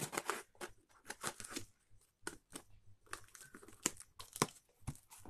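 Utility knife slitting clear packing tape on a cardboard parcel: irregular scratchy cutting and tearing strokes with crinkling tape and a few sharp clicks about four seconds in.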